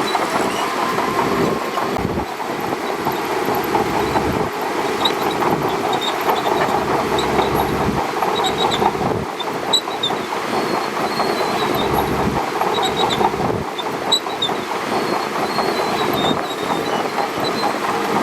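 SHANTUI DH17C2 crawler bulldozer running, its steel tracks clanking steadily with short, high squeaks now and then.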